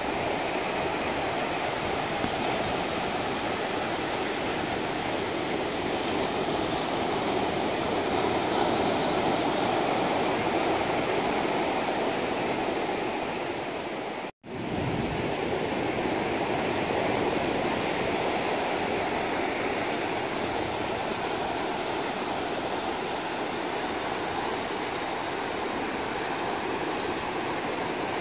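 Ocean surf breaking and washing up a wide, flat sand beach: a steady rush of waves. It drops out for an instant about halfway through.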